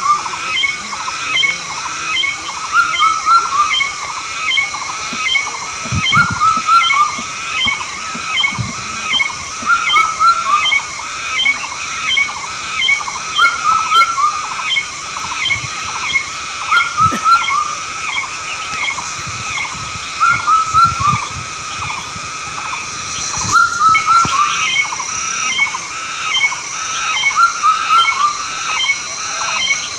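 A continuous run of short, repeated animal calls, several a second, over a steady high-pitched drone.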